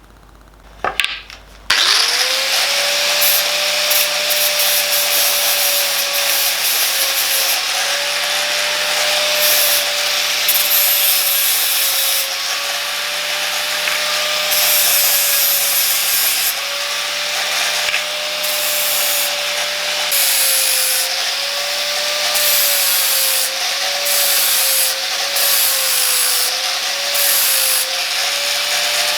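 Electric grinder starting up about two seconds in and then grinding a bolt down to fit a T-slot. Its motor whine keeps dipping in pitch and recovering as the disc bites, over a steady grinding hiss.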